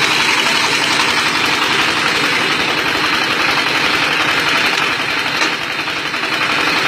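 Motor-driven brick-making machine running with a steady mechanical drone, easing slightly near the end.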